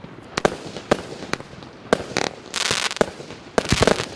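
Klasek Signature 4920 49-shot, 20 mm firework cake firing: a run of sharp bangs roughly every half second, a dense crackling hiss about two and a half seconds in, and a quick cluster of bangs near the end.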